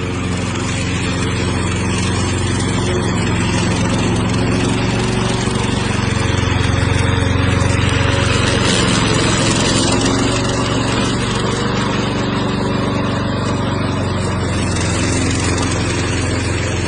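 Remote-control lawn mower's engine running steadily under load. A broad rushing noise over the engine note swells midway through and then eases.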